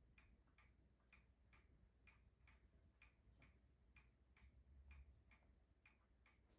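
A Shiba Inu licking its front paws: faint, soft wet clicks, a little over two a second, against a low room hum.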